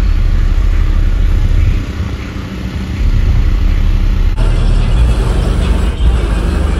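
Car engine running, heavy and steady in the bass; the sound shifts abruptly about four seconds in.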